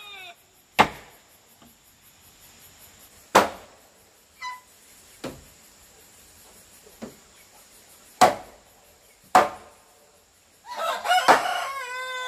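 Sharp, irregular tool strikes, about seven spaced one to three seconds apart, some much fainter than others. A rooster crows from near the end, a long call falling in pitch, and a short bird call sounds about four and a half seconds in.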